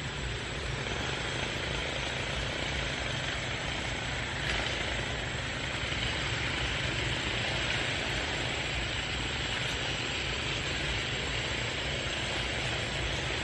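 Steady outdoor background noise: a low rumble with an even hiss above it, without any distinct calls or knocks.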